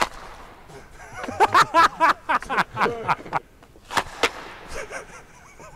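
Hockey puck clacking off stick blades on the ice in a string of sharp knocks, loudest about a second and a half in, with wavering voice-like sounds among the knocks.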